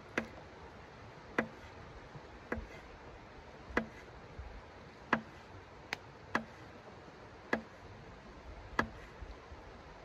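Sharp clicks, roughly one every second and a quarter, from a small hand tool worked against the edge of a marble-pattern board.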